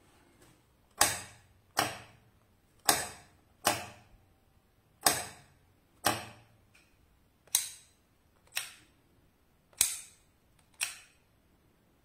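A 12 V solenoid door lock, switched by an IR remote through a transistor circuit, clacks ten times in five pairs, the two clacks of each pair about a second apart. Each pair is the bolt pulling in when the lock is triggered and springing back out.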